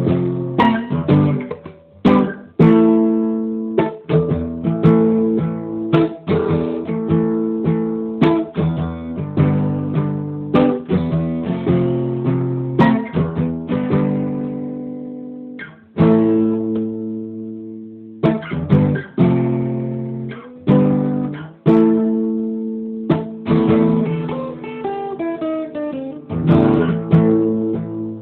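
Acoustic guitar playing a reggae song's instrumental break without vocals: chords struck and left to ring, with single picked notes between, and a short run of picked notes near the end.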